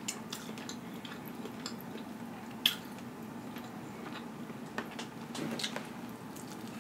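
Quiet close-up eating sounds: a rotisserie chicken drumstick dipped into a cup of dressing, small wet clicks, one sharp click about two and a half seconds in, and a bite into the chicken near the end, over a faint steady hum.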